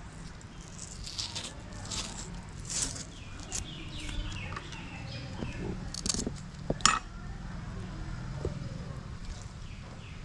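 A knife scraping, cutting and tapping intermittently while whole fish are cleaned and skinned, with a sharp click about seven seconds in.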